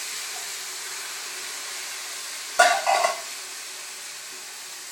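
Rice frying in oil and butter in a pan, a steady sizzle and steam hiss as liquid is poured in, slowly easing off. A little past halfway, a metal utensil clatters twice against the pan.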